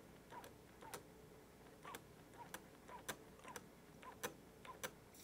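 Faint clicks, roughly two a second, several with a small squeak: strokes of a hand pump bottle forcing water into a model steam locomotive's boiler for a hydraulic pressure test, as the pressure climbs.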